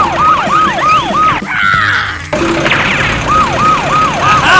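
Siren sound effect wailing in fast up-and-down cycles, about three a second. It breaks off about a second and a half in for a short swirling effect, then resumes.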